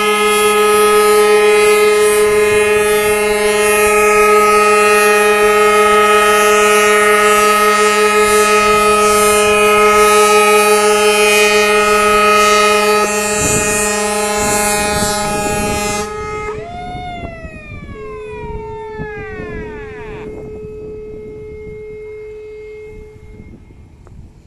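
Ship's siren sounding one long, steady blast. About 16 seconds in it cuts off and its pitch falls away as it winds down, with a fainter steady tone fading out near the end.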